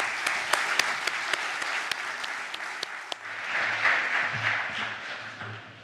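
Audience applauding in a hall, rising again a little past the middle and dying away near the end.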